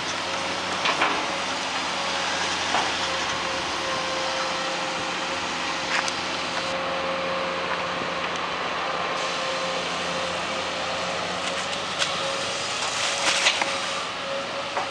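Engine of an amphibious backhoe running steadily at a constant pitch, with a few sharp knocks now and then.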